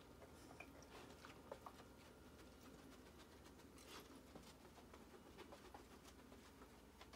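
Near silence with a few faint short sniffs and soft scuffs from a Japanese Akita puppy searching on carpet.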